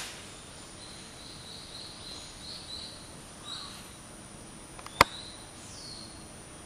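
Japanese longbow (yumi) string snapping once on the arrow's release, a single sharp crack about five seconds in. A small bird chirps repeatedly before it and once more shortly after.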